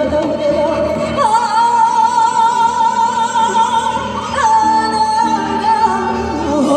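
Female pansori singer singing with a band. About a second in she holds a long high note with wide vibrato, slides up briefly, then holds another long note.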